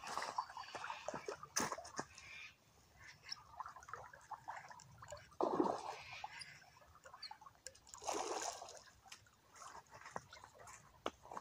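Small waves lapping and splashing against a rocky shoreline, in uneven swells, with scattered small clicks.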